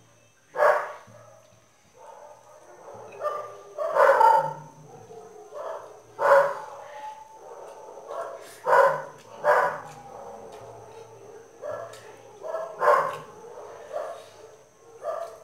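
A dog barking repeatedly, about a dozen single barks at irregular intervals.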